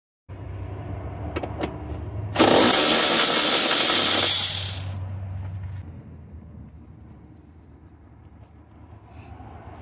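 Power ratchet running for about two and a half seconds with a loud hissing whir, backing out a 13 mm fastener on the battery hold-down bracket, over a low hum that fades a few seconds in.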